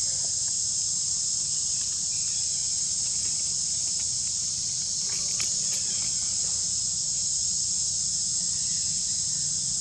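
Insect chorus in the forest: a steady, unbroken high-pitched drone.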